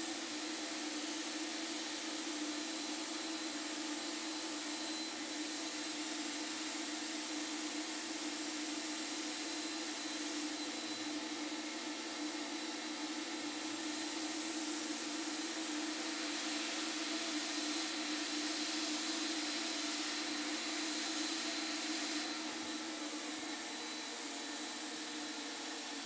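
HVLP turbine running steadily, with compressed air hissing through an Apollo 7700 spray gun as it sprays fine lines in a near-airbrush pattern. The high hiss brightens and dims a few times over the steady turbine hum.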